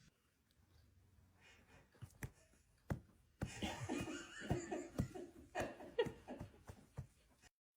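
A person laughing in a run of short repeated bursts, starting about halfway through after a couple of faint clicks.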